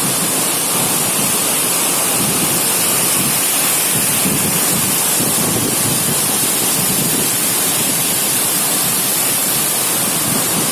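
Waterfall: the loud, steady rush of falling water, an even noise with no breaks.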